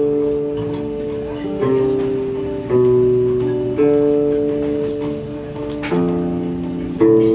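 Clean electric guitar playing an instrumental intro. Each chord is strummed once and left to ring, with a new chord about every one to two seconds.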